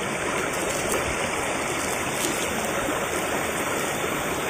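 Shallow, rocky stream flowing over stones: a steady, even rush of water.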